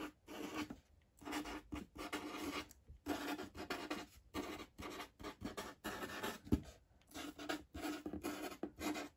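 Black felt-tip marker writing on paper, rubbing and scratching in short strokes with brief gaps between them as letters are formed.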